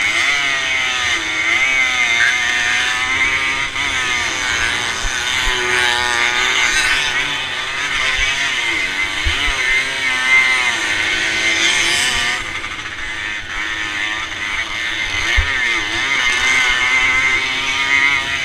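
Classic motocross bike's engine heard from a handlebar-mounted camera, revving up and down with gear changes and throttle, under wind rush. The revs ease off about twelve seconds in.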